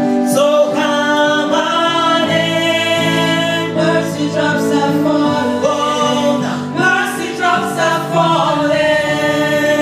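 Singers performing a slow gospel worship song together, holding long notes that slide between pitches over sustained backing chords.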